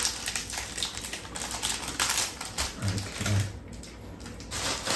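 Thin plastic sandwich wrapper crinkling and crackling as it is torn open and peeled off the sandwich, dying down after about three and a half seconds.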